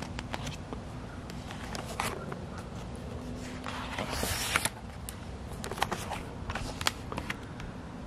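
Pages of a picture book being handled and turned: scattered paper rustles and light clicks, with a louder swish of a page turning about four seconds in, over a steady low rumble.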